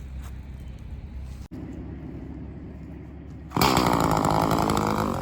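A low steady rumble, then a chainsaw starts running loudly at high revs about three and a half seconds in.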